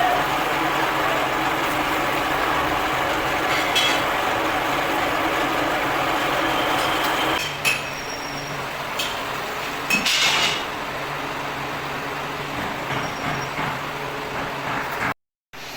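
A machine running steadily, which drops in level and changes about seven seconds in, with a few sharp metallic clinks after the change.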